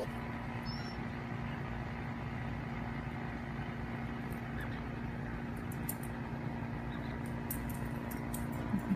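Steady low mechanical hum with a few faint, light clicks in its second half.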